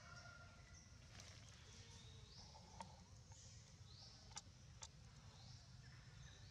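Near silence: faint outdoor ambience with a low steady rumble, a few soft clicks, and a faint high chirp that sweeps upward several times.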